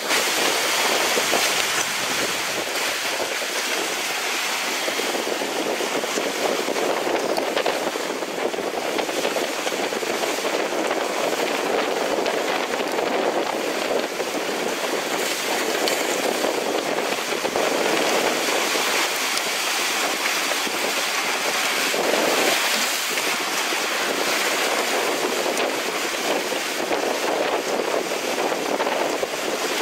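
Wind buffeting the microphone over the rush of water along the hulls of a Tricat 25 trimaran sailing fast through a rough sea. A steady noisy rush that swells slightly now and then.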